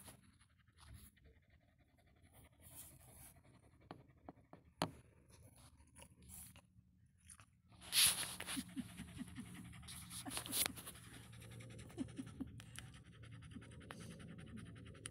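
Curly-coated dog panting and snuffling right at the microphone, with several sharp rustles and knocks as it brushes the phone, over a low steady hum.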